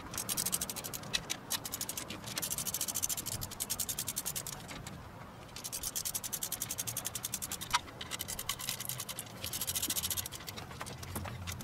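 Ratchet wrench clicking rapidly in four runs of a couple of seconds each, as bolts are wound down on a camshaft oil seal retainer.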